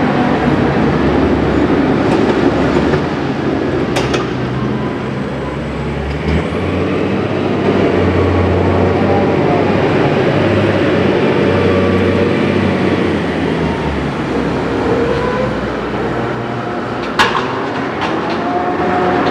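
A 1976 Mohr harbour crane working its grab: its hoist and slewing drives run with a steady mechanical rumble and a motor whine that shifts in pitch. There is a sharp metallic clank about four seconds in and another about two seconds before the end.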